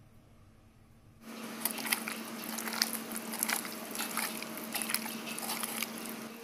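A hand squishing and tossing raw potato sticks coated in wet gram-flour and flour batter in a bowl. It is a dense run of wet squelches and small clicks that starts about a second in.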